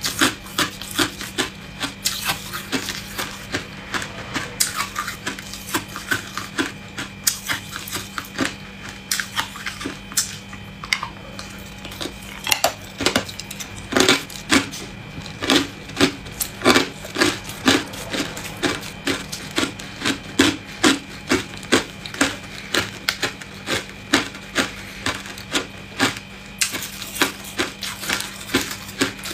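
Hard ice cubes crunched between the teeth, close to the microphone: a run of sharp irregular cracks, several a second, growing louder and denser about halfway through. A steady low hum runs underneath.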